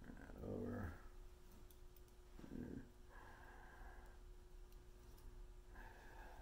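Near silence: quiet room tone with a faint steady hum, broken twice by a short, low murmur of a man's voice, about half a second in and again about two and a half seconds in.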